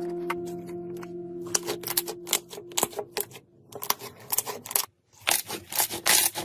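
Slime being squished and pressed by hand, giving rapid crackling clicks that grow dense and loud in the last second and a half. Background music with held notes fades out over the first three seconds.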